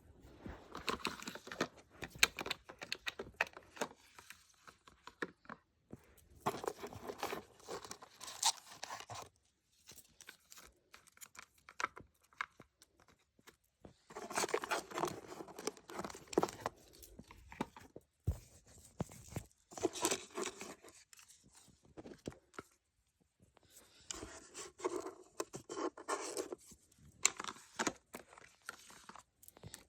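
Packaging being torn open and handled by hand: bursts of tearing and rustling with sharp clicks, in several separate spells with short pauses between them.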